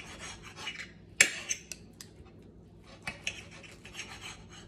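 Knife sawing through a cooked steak with a fork holding it, the blade rasping and scraping on the plate in short bursts, with one sharp clink of metal on the plate about a second in.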